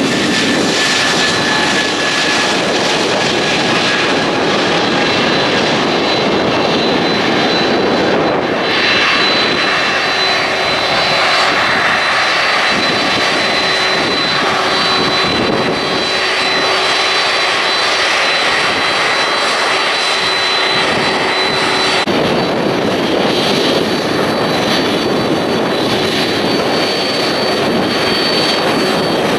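Jet airliner engines running close by: a loud, steady rush with a high whine held throughout. The high part of the sound shifts abruptly about 22 seconds in.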